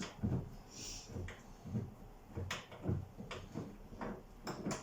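Irregular light knocks, clicks and low thuds from handling a refrigerator door and its hinge fittings while the door is being removed and held.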